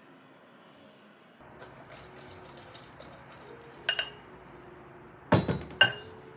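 Glass mixing bowl clinking as it is handled: a quick pair of light clinks a little before the middle, then two louder ringing knocks half a second apart near the end.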